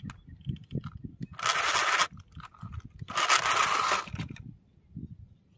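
Small electric RC car motor and gearbox whirring in two bursts of throttle, each under a second, as the tow rope pulls the overturned MN D90 truck back onto its wheels.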